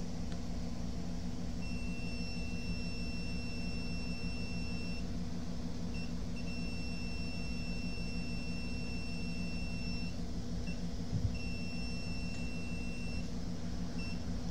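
Multimeter test buzzer beeping as its probes touch diodes on a circuit board: a steady high beep that holds for about three seconds, stops, holds for a few seconds more, then sounds once more briefly, with short chirps between as the probes make and lose contact. A steady low hum runs underneath.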